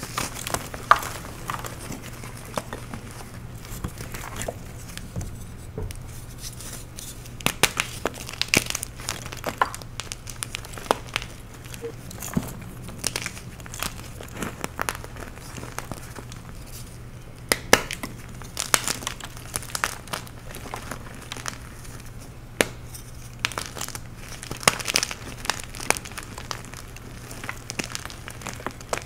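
Dyed, glitter-topped chalk blocks crushed and crumbled by hand in a bowl: irregular crunches and gritty crumbling as chunks break and powder shifts, over a faint steady low hum.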